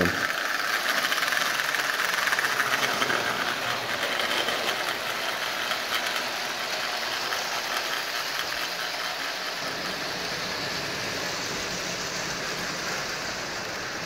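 Marx 666 toy steam locomotive running on three-rail tinplate track: the steady whir and fast clatter of its electric motor, gears and wheels on the rails, growing slightly fainter toward the end.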